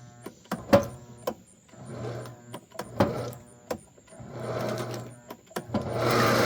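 Weston No. 32 electric meat grinder's 1.5 hp motor run in short bursts with sharp switch clicks, as it is backed up in reverse and run forward again. Near the end it settles into running steadily.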